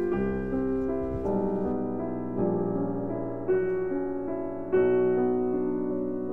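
Background piano music: slow chords, a new one struck about every second.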